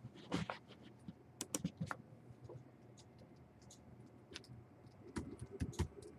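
Scattered light clicks and taps, in a small cluster about a second and a half in and another near the end.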